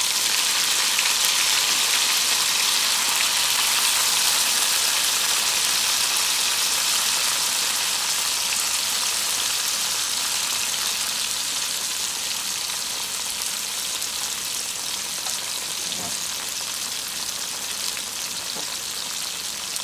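Chopped coriander leaves sizzling in hot oil with fried green chillies. The sizzle is loud at first and slowly dies down.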